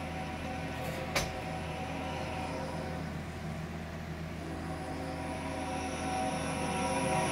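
Union Pacific diesel freight locomotives approaching, a steady rumble that grows louder over the last few seconds, heard through a computer speaker playing a railcam livestream. A single sharp click about a second in.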